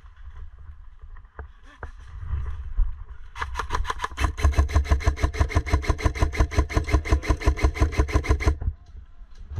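An upgraded Specna Arms airsoft electric rifle firing one long full-auto burst of about five seconds, with rapid even shots over the gearbox's steady whine. It starts about three seconds in, after some handling rustle and clicks.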